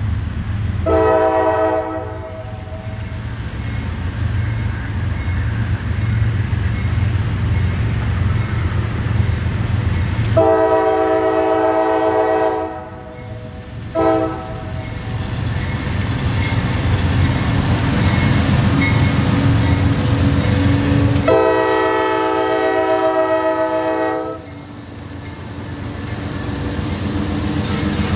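CSX diesel freight locomotive sounding its multi-chime horn in the grade-crossing signal of two long blasts, a short one and a final long one, over the steady low rumble of the approaching train.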